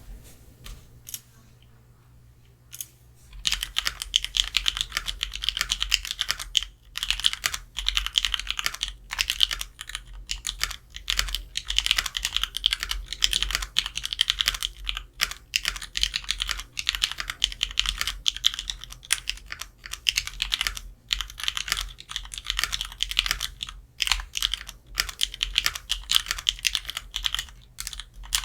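Typing on a mechanical keyboard with lubed Kailh Pro Purple tactile switches and GMK keycaps. A few isolated keystrokes come first, then steady, irregular typing sets in about three seconds in.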